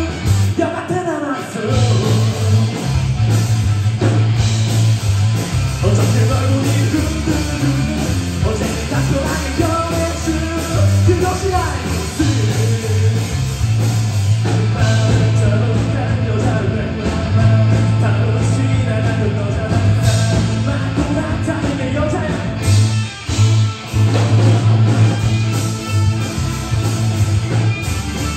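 Live rock band playing a blues-rock song: electric guitar, bass guitar and drums, loud and continuous, with a brief stop in the playing about 23 seconds in.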